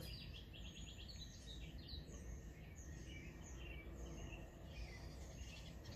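Small birds chirping: a quick run of chirps at the start, then scattered calls, over a low steady background rumble.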